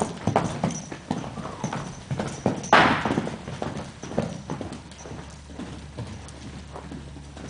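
Welsh pony's hoofbeats drumming on soft arena footing as he canters loose, a quick uneven run of dull thuds. About three seconds in there is one loud breathy burst.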